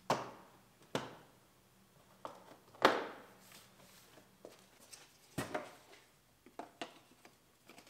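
Plastic trim moldings being pressed and snapped onto a 2016 GMC Terrain's plastic rear bumper cover: a series of short, sharp clicks and knocks at irregular intervals, the loudest about three seconds in.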